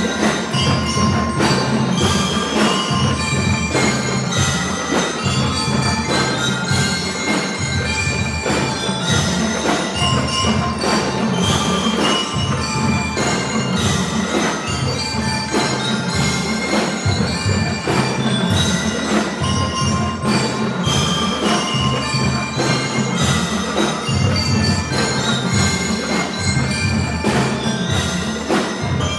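Drum and lyre corps playing: drums beating a steady rhythm under bell lyres ringing out a melody.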